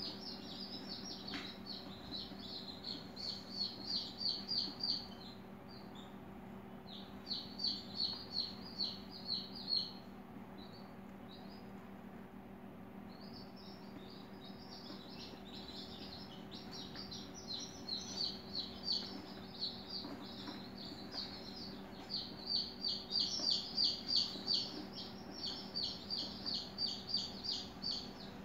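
Rapid high-pitched chirping in repeated runs of two to four seconds, with short pauses between runs, over a steady low hum.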